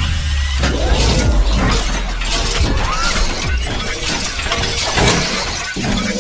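Sound effects for an animated logo intro: continuous crashing, shattering noise with many quick cracks, over a low rumble during the first second or so.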